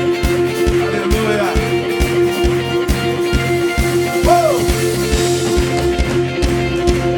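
Live worship band playing an upbeat song without vocals: a steady kick-drum beat, bass, guitar and held keyboard notes.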